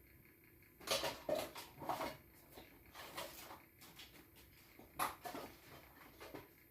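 Hands handling small hard objects: an irregular run of clicks, taps and rustles starting about a second in.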